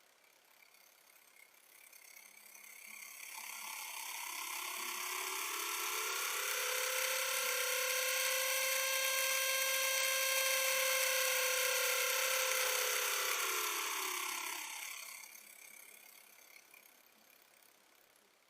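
Small electric motor whining as it speeds up, runs steadily for several seconds, then slows down and fades out.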